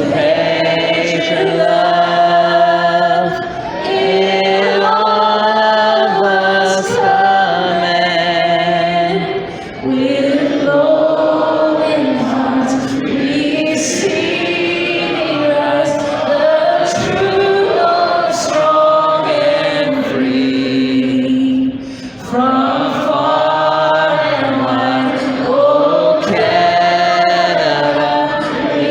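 Several voices singing a slow song together in long held notes, with short breaks between phrases.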